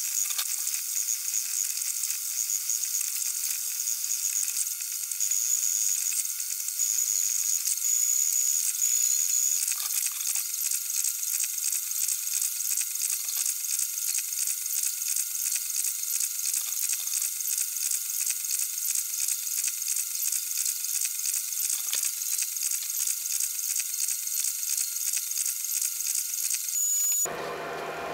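FDM 3D printer running a print: a high-pitched whirring buzz from its stepper motors and fans, with a fast ripple and a thin whine. It stops abruptly near the end.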